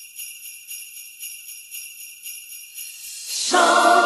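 Sleigh bells shaken in a steady rhythm as the intro of a Christmas song. About three seconds in, the rest of the band comes in, much louder.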